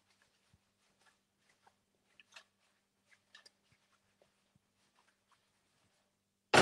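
Faint, scattered clicks and taps of metal tongs against a frying pan as fried eggplant is tossed, with a louder clank near the end as the pan goes back onto the gas burner grate.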